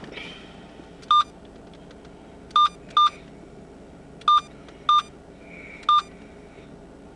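Six short, identical electronic key beeps at uneven intervals, the sound of buttons being pressed on a handheld device's keypad, over the low steady background of a car interior.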